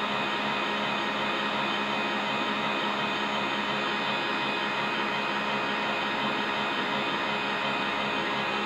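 Electric stand mixer running steadily at constant speed, its beater whipping cream and condensed milk in a stainless steel bowl: an even motor hum and whine with no change in pitch.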